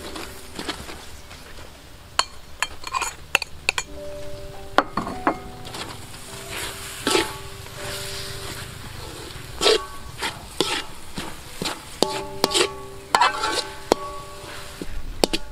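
Metal spoon stirring grated coconut into a sticky brown mixture in a metal pan: irregular scrapes and clinks of spoon on pan, some sharp and loud.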